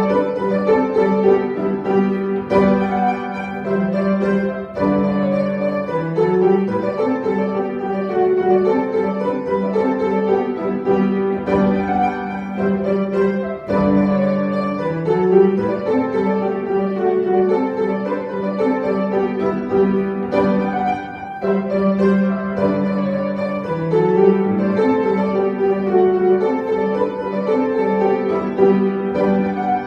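Instrumental classical music led by piano, with some string sound, playing continuously as accompaniment for a ballet barre exercise.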